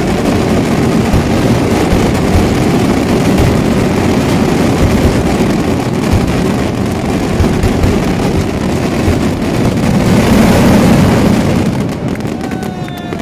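Daytime aerial fireworks finale: a dense barrage of salute bombs firing so fast the bangs merge into one continuous rumble, dying down about twelve seconds in.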